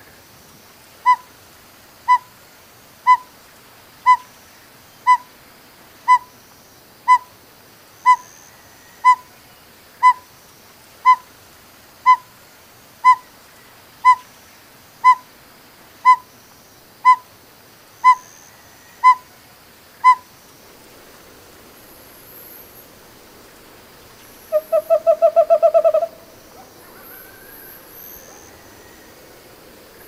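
An owl hooting a long, even series of short single notes, about one a second, for some twenty seconds. After a pause comes a short, fast trill about a second and a half long.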